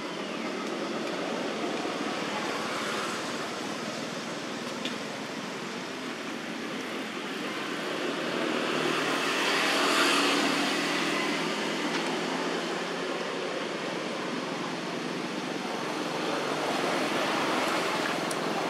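Steady rushing background noise with no distinct calls, swelling to its loudest about ten seconds in and easing off again.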